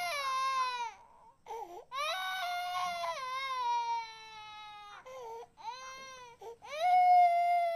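A series of long wailing cries, about four in all, each one sliding down in pitch at its end, with short catches between them. The loudest cry comes near the end.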